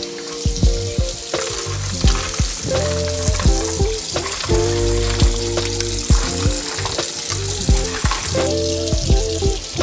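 Food sizzling and frying in a hot pan, under background music with a steady beat.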